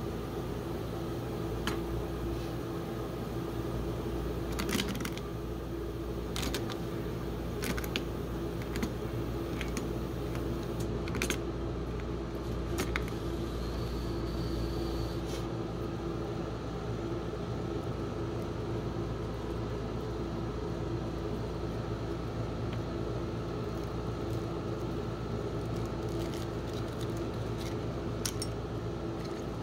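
Steady hum of an ice-cream-roll cold plate's refrigeration unit, with scattered sharp snaps and clicks as a chocolate Santa is broken up and its pieces drop onto the steel plate. Near the end come a few crinkles of a foil wrapper being peeled.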